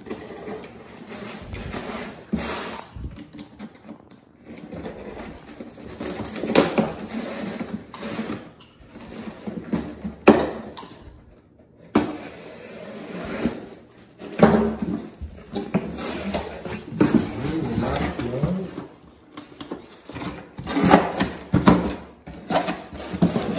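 Cardboard shipping box being cut open with a box cutter and its flaps pulled apart: irregular scraping, tearing and rustling of cardboard and packing tape, with a few sharp knocks.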